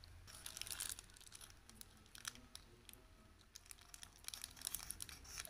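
Clear plastic lollipop wrappers being handled, crinkling faintly in short, irregular crackles.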